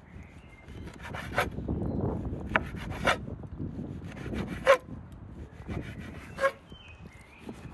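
Chef's knife slicing through raw lamb testicles on a wooden cutting board: the blade rubs as it is drawn through the meat, with a sharp knock on the board at the end of each cut, about five in all.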